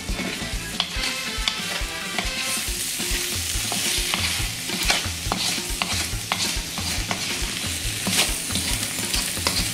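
Wooden spoon stirring cubed potatoes in a thick spiced sauce in a wok, with scattered scrapes and taps of the spoon against the pan, over the sizzle of the sauce frying. The sizzle grows louder about two and a half seconds in.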